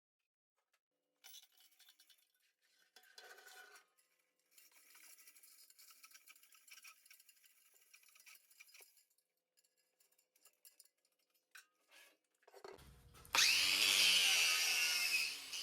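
Faint scraping and clicking of metal being handled for about twelve seconds. Then, about 13 s in, an electric grinder starts up loudly, its whine rising as it spins up and then holding steady, with a brief dip near the end as it bears on the steel.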